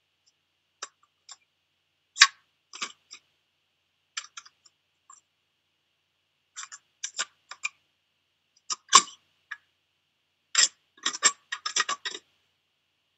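Scattered short, sharp clicks and taps with silence between them, ending in a quick run of them about ten and a half seconds in.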